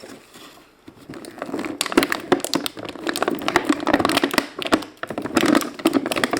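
Plastic toy packaging being handled, crinkling and crackling in a dense run of clicks from about a second in.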